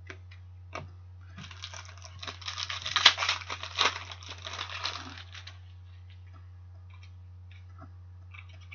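Hockey trading cards being handled on a table: a few light clicks, then about four seconds of dense rustling and crinkling as the cards slide and shuffle against each other, then a few soft taps. A low steady hum runs underneath.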